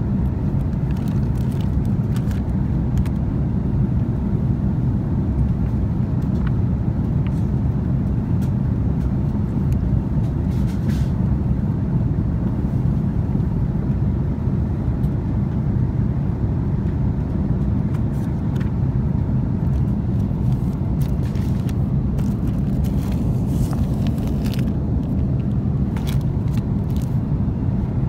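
Steady low cabin noise of an Airbus A330-300 airliner in flight, the rushing of airflow and its Rolls-Royce Trent 700 engines, with a few faint clicks and rustles now and then.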